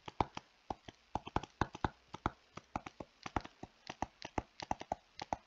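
Stylus tapping on a tablet screen while handwriting: an irregular run of short, sharp taps, several a second.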